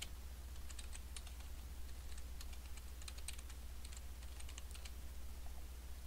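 Computer keyboard being typed on, keys clicking in short irregular runs, over a steady low hum.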